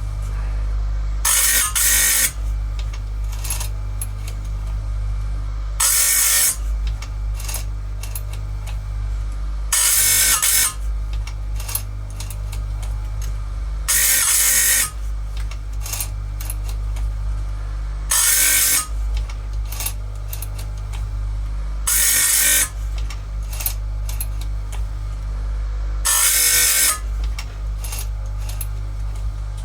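Electric chain grinder running with a steady hum, its grinding wheel brought down onto saw-chain cutters seven times, about every four seconds, each a brief, loud grind of the wheel on the steel tooth. It is sharpening the cutters one at a time, just touching each edge.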